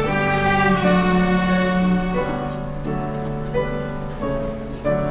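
Orchestral music: bowed strings, led by violins, playing sustained notes that change every half second or so.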